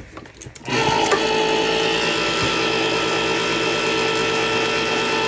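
Electric can opener running steadily as it cuts around a large can of tomatoes, its motor hum starting about a second in after a few light clicks.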